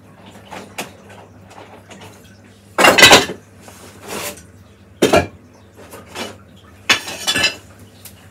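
Soaked willow rods being pulled out of a metal soaking trough, clattering against its sides in three loud bursts, about three, five and seven seconds in.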